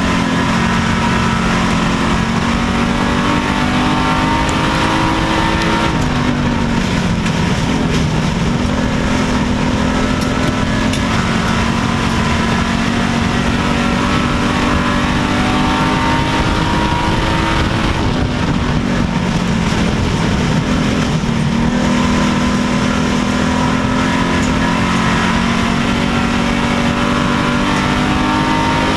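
A WISSOTA Street Stock dirt-track race car's V8 engine, heard from inside the cockpit, running hard at racing speed. Its pitch drops twice, about six seconds in and again about eighteen seconds in, as the throttle comes off, then climbs back under power.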